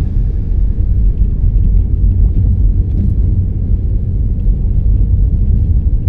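Car driving on a snow-covered road: a steady low rumble of engine and tyre noise.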